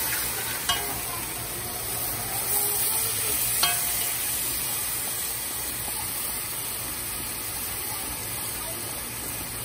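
Washed rice being stirred into hot seasoned liquid in a metal pot, with a steady sizzle and a metal spoon scraping and clinking against the pot, two sharper clinks about a second in and near four seconds in.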